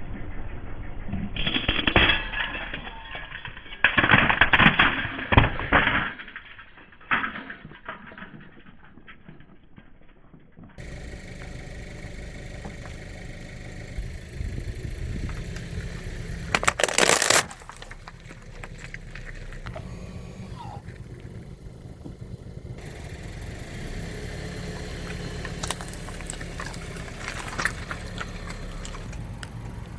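Christmas ornaments crunching and breaking under a car's tyres, in several bursts over the first eight seconds. From about eleven seconds a car engine runs steadily at low speed, with another loud crunch partway through.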